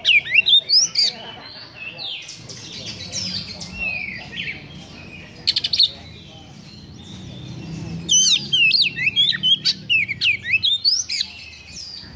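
Oriental magpie-robin singing: rapid bouts of sweeping whistles and harsh, scratchy chattering notes. A quick rattle comes about five and a half seconds in, and a loud, fast bout runs from about eight to eleven seconds.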